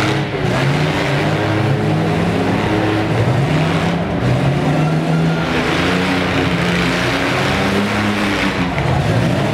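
Engines of several demolition-derby mini trucks revving hard at once, their pitches climbing and falling as they push in the mud.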